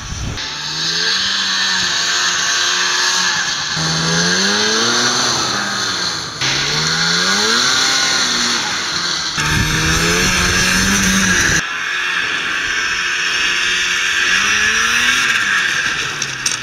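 Snowmobile engine revving up and down under throttle, its pitch rising and falling again and again over a steady high hiss, with several abrupt breaks in the sound.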